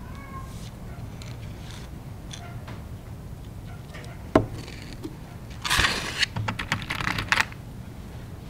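Small handling clatter over a low steady hum: one sharp click about four seconds in, then a second and a half of quick clicking and rattling as metal alligator clips are rummaged in a plastic box and one is picked out.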